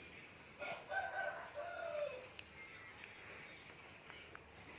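A rooster crowing once, a call of about a second and a half that drops in pitch at the end.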